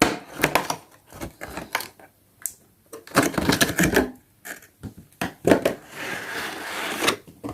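A cardboard toy box and its packaging being handled and opened: a run of irregular clicks, taps and knocks, then a longer rustling scrape near the end.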